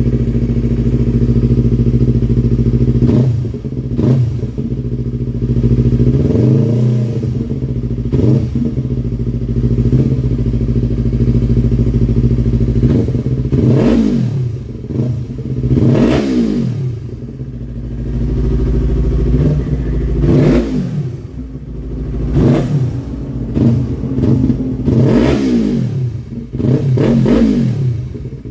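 Yamaha MT-03's parallel-twin engine breathing through a Yoshimura R77 full exhaust: it idles steadily, then is blipped and revved about a dozen times, each rev rising and falling back to idle.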